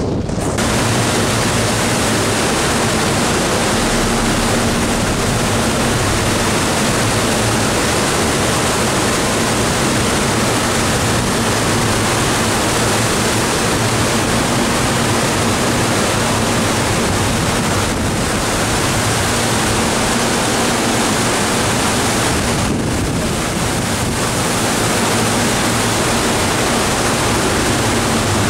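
Steady, even rush of strong storm wind over the ship's deck and the rough sea breaking below, with wind blowing across the microphone.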